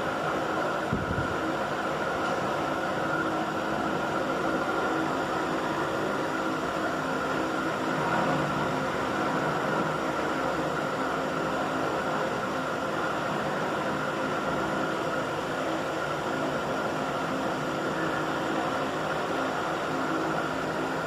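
A small electric motor running steadily, a constant whir with hiss and a few fixed tones, unchanged throughout.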